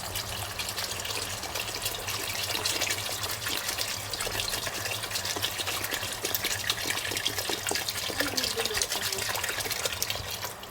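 Water poured from a bottle into a cooking pot, gushing and splashing steadily, stopping at the very end.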